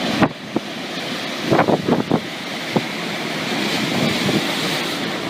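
Storm wind rushing, with a steady hiss, and a few sharp knocks or cracks: one at the start, a quick cluster about a second and a half to two seconds in, and one more a little later.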